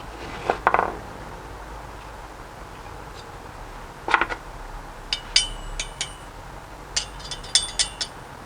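Light metallic clinks and taps of small metal parts and tools handled on a workbench: a couple of knocks early, one near the middle, then two runs of bright, briefly ringing clinks in the second half.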